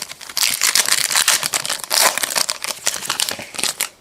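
Crinkly plastic wrapper of a trading-card pack being handled and torn open: a dense crackling that lasts about three and a half seconds.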